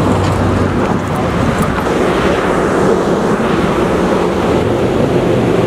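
Steady loud rush of wind on the microphone, mixed with the hum of street traffic.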